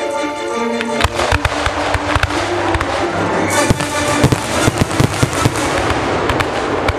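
Aerial fireworks going off: an irregular string of sharp bangs and crackles begins about a second in and keeps going, with music playing throughout.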